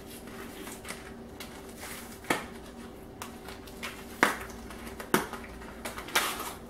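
A small cardboard gelatin-dessert box and its paper inner packet being torn open by hand, making several sharp tearing snaps about a second apart over a faint steady hum.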